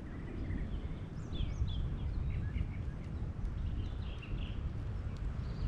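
Several small birds chirping and twittering in short, quick notes over a steady low rumble of wind and outdoor background noise.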